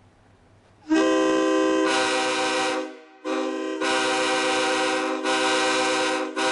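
Nathan K5HL five-chime locomotive air horn sounding a steady multi-note chord: a long blast, a brief break, a longer blast, then a short toot near the end.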